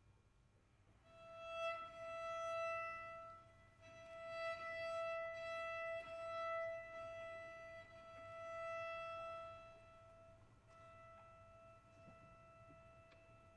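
A violin holds a single long high note, swelling and easing several times, then fading quieter near the end.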